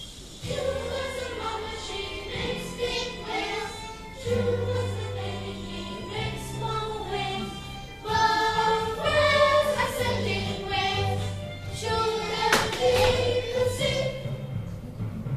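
A group of children singing a song together, over an instrumental accompaniment that holds steady low bass notes which change every couple of seconds.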